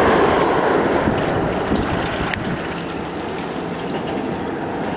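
Water poured from a plastic bucket splashing into a shallow plastic basin, a steady rushing splash that starts suddenly and eases a little.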